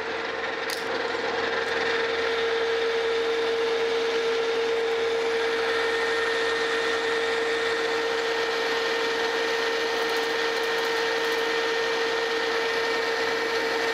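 Metal lathe turning a steel bar with a carbide insert, taking a cut about a hundred thousandths deep: a steady machine hum with the hiss of cutting and a held mid-pitched tone, joined by a higher whine about halfway through. The insert is getting dull and is not breaking the chip cleanly.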